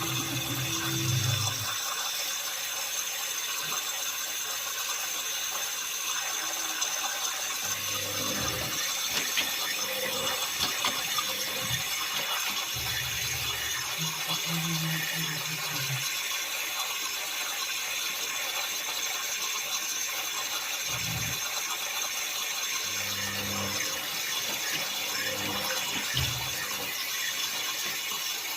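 Thomson washing machine running a wash: water moving in the drum, with a low motor hum coming and going in short spells.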